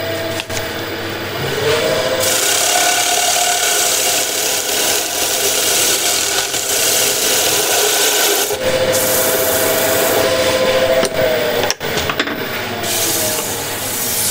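Sandpaper rubbing on a cherry bowl spinning on a wood lathe: a steady rasping hiss over the lathe motor's hum, which shifts in pitch about two seconds in and again in the second half.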